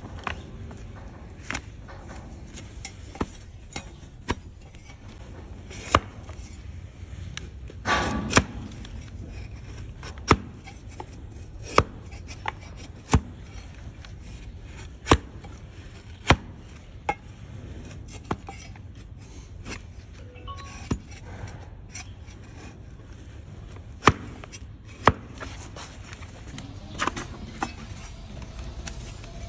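A donkey's hoof being pared with a flat farrier's push-knife against a wooden stand. Sharp cracks come every second or two as slices of hoof horn are cut off, with quieter scraping between them.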